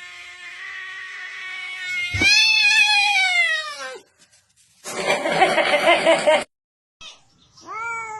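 A cat caterwauling: a long drawn-out yowl, then a loud meow that falls in pitch, a harsh rough cry, and after a brief break another falling meow near the end.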